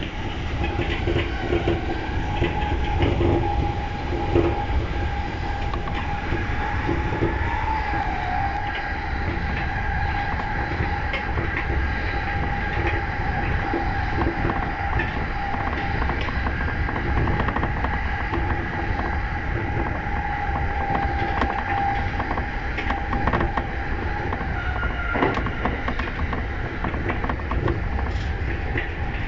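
E235 series electric train running at speed: a steady low rumble with a held whine, and irregular clicks of the wheels over rail joints.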